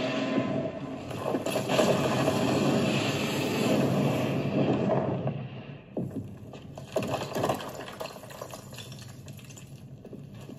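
TV drama sound effects: a dense rumble with clatter for about five seconds, then a few sharp knocks over a quieter, steady rumble.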